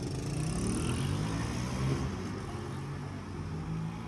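A motor vehicle driving past on the street: engine hum and tyre noise swelling over the first couple of seconds, then easing off near the end.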